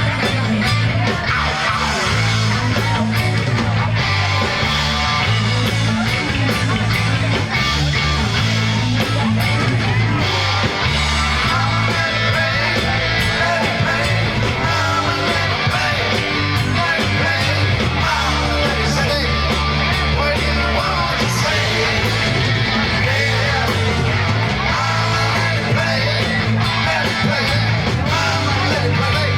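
Live band playing loud country rock without sung lyrics: an instrumental stretch with guitar over a steady bass line.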